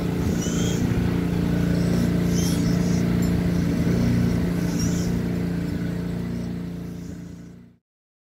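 An engine idling with a steady, even hum, with a few short high chirps over it; the sound fades out and stops near the end.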